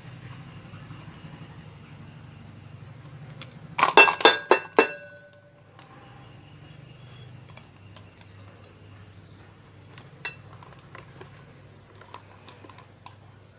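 Metal parts clinking: about four seconds in, a quick run of about six sharp, ringing metallic clinks, the loudest thing here, then light scattered clicks of handling, over a low steady hum.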